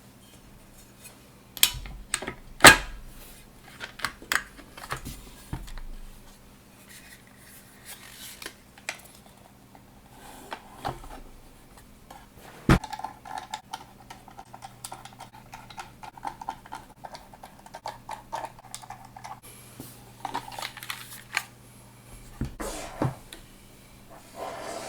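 Parts of an aluminium mechanical keyboard case being handled and fitted together by hand: irregular metallic clicks, taps and clinks with a few sharp knocks, two of them loudest, and some rustling in between.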